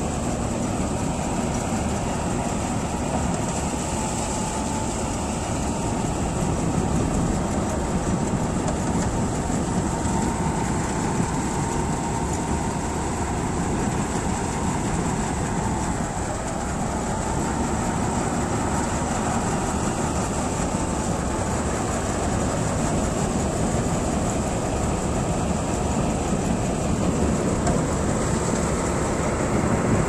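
John Deere 5530 tractor-mounted Dasmesh 912 rice combine harvester running steadily under load, cutting and threshing: engine and threshing machinery together in one continuous din, with a faint high whine above it.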